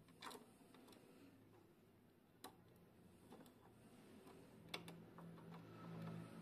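Near silence with a few faint, sharp clicks: the plastic battery cover of an RC truck being pressed shut and its screw turned with a small screwdriver.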